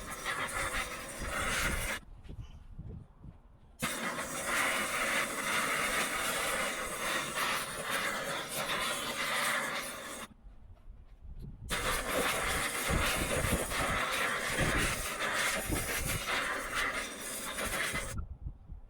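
Gas torch flame hissing steadily as it heats silver to melting, shut off abruptly twice for a second or two and again near the end.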